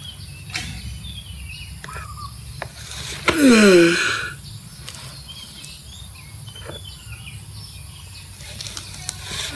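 Male Aldabra giant tortoise giving one loud mating grunt, falling in pitch and lasting under a second, about three seconds in, while mounted on a female. Faint bird chirps in the background.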